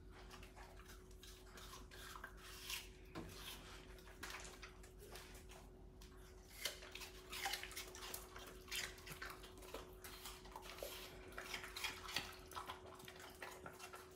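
Dogs chewing pieces of green apple: quiet, irregular wet crunching and smacking, with a faint steady hum underneath.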